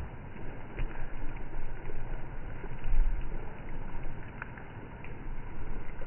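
Steady rain falling on a wet road and puddles, an even hiss with a few sharper drop ticks, and low gusts of wind buffeting the microphone, strongest about three seconds in.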